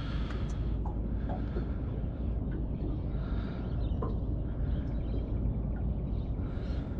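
Wind rumbling steadily on the microphone over open water, with faint bird calls in the distance.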